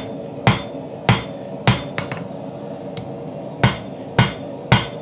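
Hand hammer striking a red-hot Damascus steel billet on an anvil, forging the integral bolster of a chef's knife. Three heavy blows come about half a second apart, then a short gap with two lighter taps, then three more heavy blows in the same rhythm.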